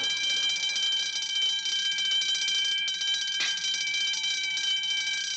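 Electric alarm bell ringing steadily and continuously, with one short knock about three and a half seconds in.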